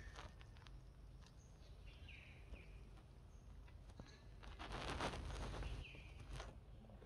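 Faint outdoor ambience with a few short, high chirps that fall in pitch, and a rustling noise lasting about a second and a half, starting about four and a half seconds in.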